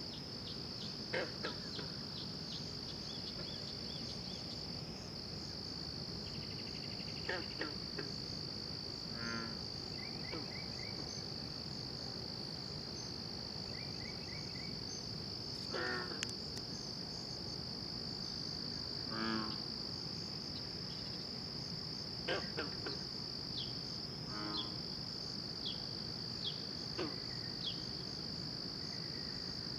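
Night chorus: a steady high cricket-like insect trill, with frogs giving short, rapidly pulsed calls every few seconds, a sound the recorder likens to a goose.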